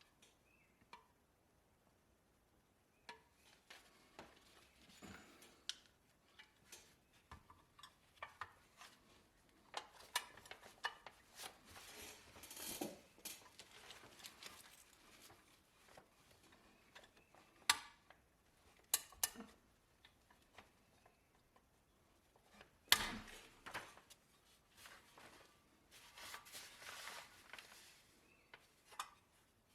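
Light metallic clinks and taps of small metal parts being handled, with a few short scraping or rubbing passages.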